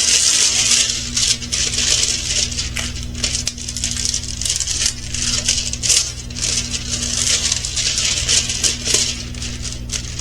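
Plastic packaging crinkling and rustling as it is handled, in irregular crackly bursts, over a steady low hum.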